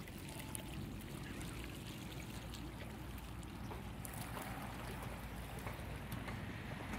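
Steady outdoor wind rumble on the microphone with a faint even hiss above it and a few light clicks.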